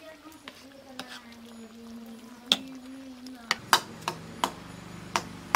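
Steel ladle clinking and scraping against a steel kadai while a simmering curry is stirred: single sharp clinks at first, then several in quick succession in the second half.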